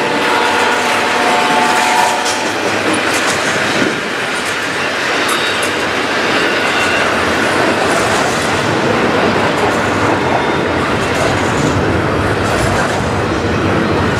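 Cars of a long CN intermodal freight train rolling past, the steady rumble of wheels on the rails with scattered clicks and a faint high whine in the first couple of seconds.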